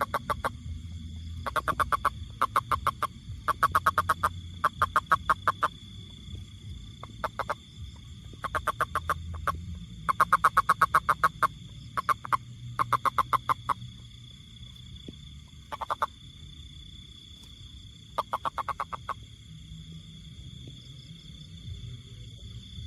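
A toad calling in short pulsed trills, each a rapid run of clicks lasting under a second or so, repeated in bouts with pauses between. A steady high-pitched tone runs underneath, and the calls stop for the last few seconds.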